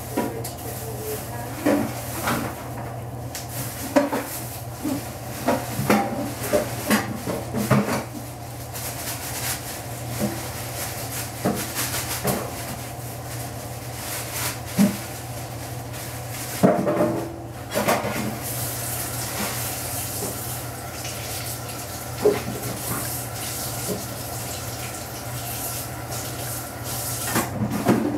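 Butter and olive oil sizzling in a frying pan as the butter foams, with irregular sharp pops and crackles throughout.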